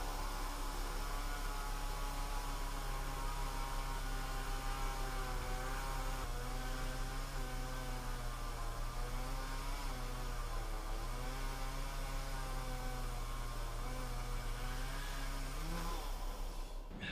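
Chainsaw engine running steadily at high speed, its pitch sagging a little in the middle as if under load in a cut, then rising briefly before the sound cuts off suddenly near the end.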